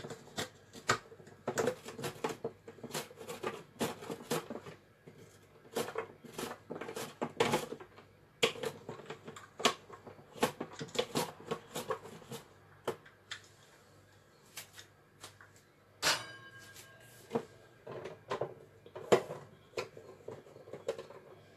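Plastic hand-operated vegetable dicer in use as vegetables are pushed through its blade grid: a run of irregular sharp plastic clacks and knocks, a few a second. The clacks thin out after about twelve seconds, and a brief scrape comes about sixteen seconds in.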